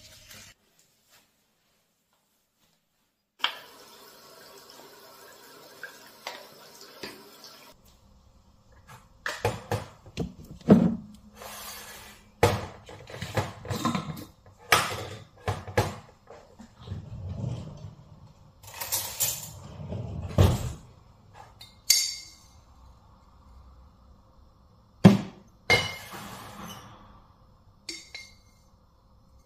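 Jars and lids handled on a stainless-steel worktop: an irregular run of knocks and clinks as a plastic lid is twisted off and set down and coffee is scooped from a glass jar.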